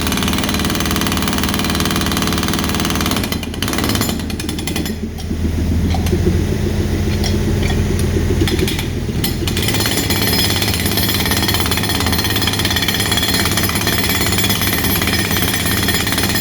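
Excavator-mounted hydraulic hammer (breaker) pounding with a rapid, continuous clatter. Partway through, the sharp rattle drops away for about five seconds, leaving a deeper rumble, then the full clatter returns.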